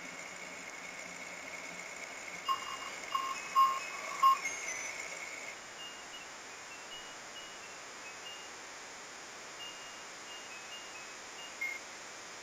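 Ice cream truck chime melody playing faintly, a string of short high notes over a steady background hiss. About two and a half seconds in come four short beeps, the loudest sounds here.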